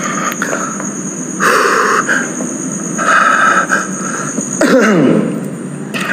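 Crickets trilling in a steady high drone that stops about three-quarters of the way through. Over it come a few short bursts of hissing noise and, near the end, a brief squeal that falls sharply in pitch.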